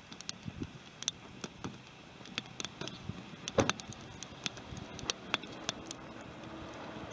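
Wood fire crackling: irregular sharp pops and snaps, one louder pop about halfway through.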